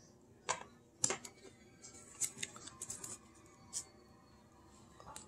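A trading card in a rigid plastic top loader being handled: about half a dozen soft clicks and scrapes of card and plastic.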